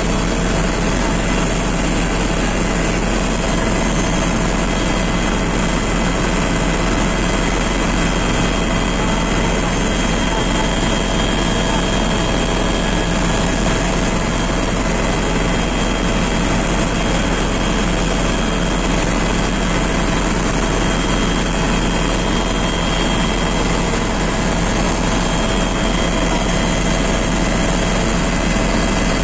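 Steady engine and airflow noise of an aircraft in flight, heard from inside the cabin, with a few constant whining tones over a loud, even rush.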